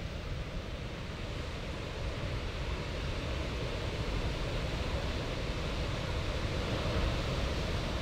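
Ocean surf washing on a beach with wind, a steady rush of noise that grows slightly louder about halfway through.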